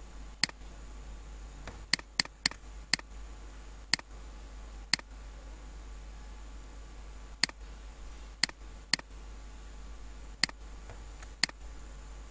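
Computer mouse button clicking, about a dozen single clicks at uneven intervals, over a steady low electrical hum.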